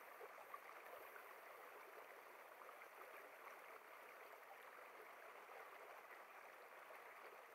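Near silence: a faint, steady hiss of running water from a mountain stream.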